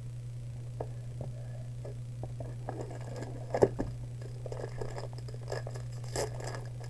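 Trading cards being handled and gathered, with soft rustling, a sharp knock about halfway through as the card stack meets the playmat, and a crisp crinkle near the end. All of it over a steady low hum.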